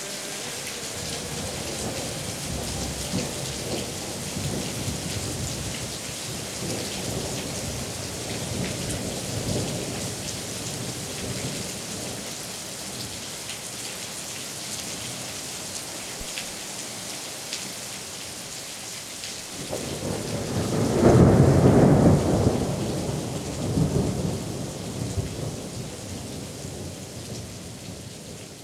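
Steady rain with low rolls of thunder, and one much louder thunder roll about twenty seconds in; the sound fades out near the end.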